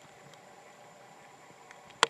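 Faint, steady wash of rainwater runoff flowing in a shallow sheet across a grassy lawn, with a few light ticks near the end.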